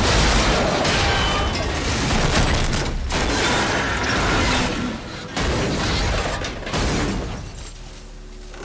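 Staged film car crash: a Mack Granite dump truck slams into a GMC Yukon SUV, with crunching metal, breaking glass and metal scraping along the pavement. It goes on loudly for several seconds and dies away near the end.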